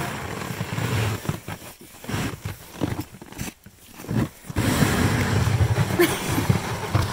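Wind buffeting the microphone: a rough low rumble that breaks up and drops away in short lulls around the middle, then comes back.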